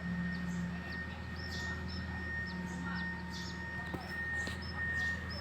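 Small birds chirping in short, repeated high calls, several a second, over a steady low engine hum and a constant high whine.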